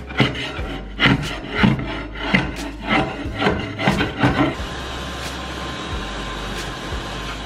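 A flat steel scraper bar dragged hard across bare OSB stair treads, about two rasping strokes a second, scraping off leftover carpet-pad staples. About halfway through the scraping stops and a shop vacuum runs steadily, cleaning up the debris.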